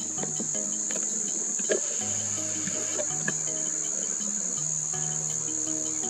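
Steady high-pitched drone of insects, unbroken throughout.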